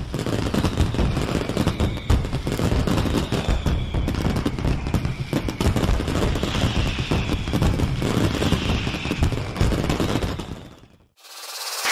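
Fireworks bursting and crackling in rapid, overlapping bangs, with faint whistling. The bangs fade out near the end, and a short rising whoosh follows.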